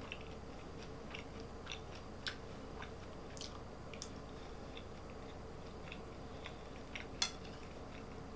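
A person chewing food quietly, with small scattered crunching and mouth clicks and one sharper click about seven seconds in.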